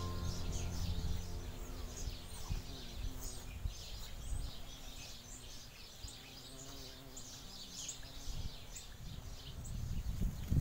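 Many small birds chirping and twittering in quick overlapping calls, over a low outdoor rumble.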